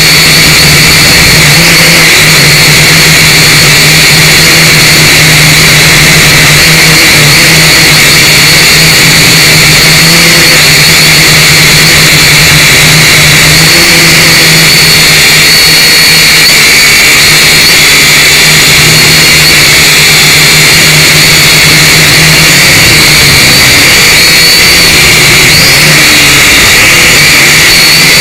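Syma X5C quadcopter's brushed motors and propellers whining steadily, very loud and close, the pitch wavering slightly as the throttle shifts.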